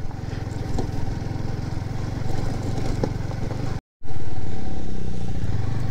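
Yamaha sport motorcycle's engine running at low road speed with a steady, even pulsing. It drops out for a moment about two-thirds through, comes back louder, and then fades as the bike slows.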